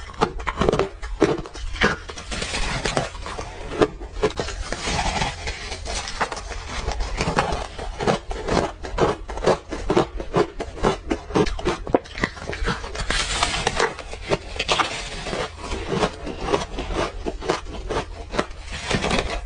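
Close-miked chewing and crunching of frozen orange ice: a dense, unbroken run of crisp crunches and crackles.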